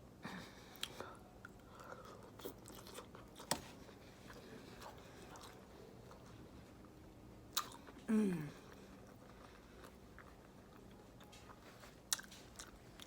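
Close-miked eating sounds: chewing a mouthful of boiled potato in sauce, with scattered sharp mouth clicks and smacks. About eight seconds in comes the loudest sound, a short low vocal sound that falls in pitch.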